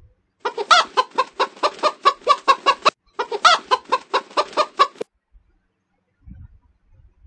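Chicken clucking: two quick runs of clucks, about seven or eight a second, the first about two and a half seconds long and the second about two, stopping about five seconds in.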